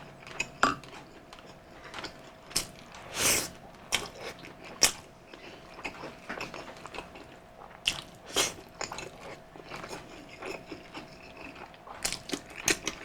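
Close-up wet chewing and lip smacks of someone eating soft, gelatinous beef stew, broken by scattered sharp clicks, a longer slurp-like burst about three seconds in and a quick run of clicks near the end. A faint steady hum sits underneath.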